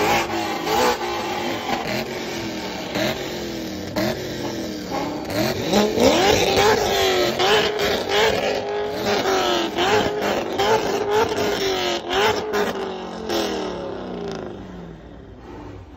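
Sports car engine revved over and over in quick blips, its pitch climbing and dropping again and again. The revving eases off near the end.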